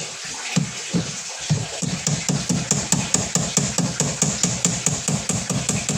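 Background music with a fast, steady electronic beat that settles in about two seconds in.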